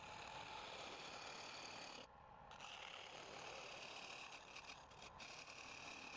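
Wood lathe running with a turning tool scraping the spinning wood, a steady rasping noise that lets up briefly about two seconds in.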